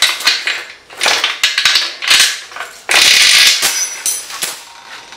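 Motorcycle roller drive chain rattling and clinking, links knocking against each other, as it is pulled off the front sprocket and out. There is a louder, denser clatter about three seconds in.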